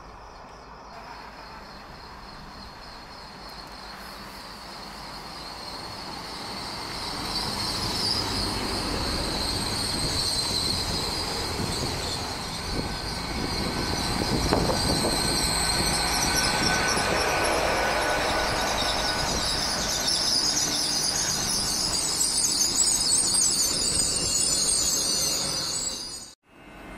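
Nine-car GWR Class 800 bi-mode train pulling into the platform and slowing. The rumble of its wheels on the rails grows louder over the first several seconds as it draws alongside, and a high squeal from its wheels and brakes carries through as it comes to a stand.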